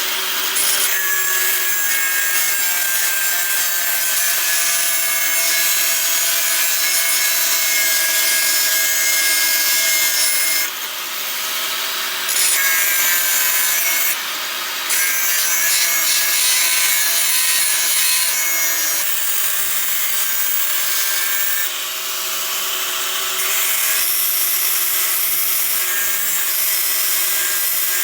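A hand power tool running steadily with an abrasive scraping and rubbing on the workpiece, as in grinding or sanding. Its steady whine and hiss break off and change abruptly every few seconds.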